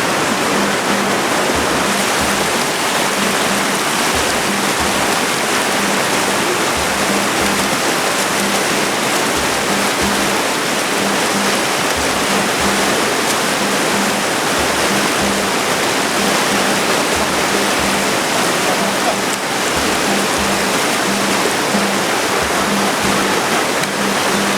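Mountain river rushing over rocks: a loud, steady wash of water noise.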